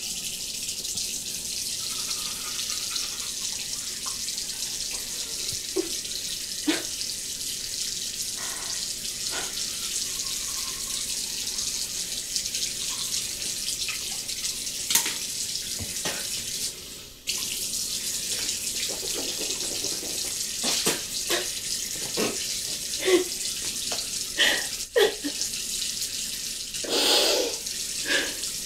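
Bathroom sink tap running steadily, with scattered small knocks and clinks at the basin. The water breaks off briefly about halfway through, then runs on.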